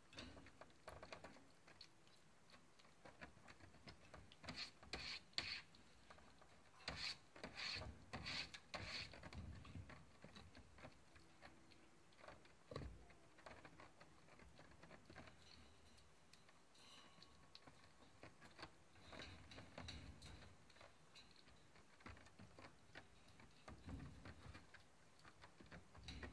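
Calico kitten eating dry kibble: faint, irregular crunching and clicking as it chews and noses the pellets in its bowl, with the busiest, loudest stretch a few seconds in.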